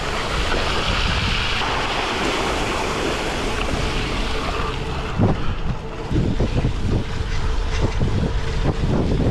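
Wind rushing over the microphone while cycling on a gravel road in heavy rain: a steady, loud hiss, with irregular low buffeting thumps from about five seconds in.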